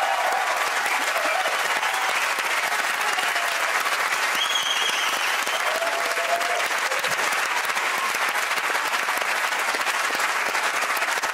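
Studio audience applauding steadily, with a few voices calling out over the clapping.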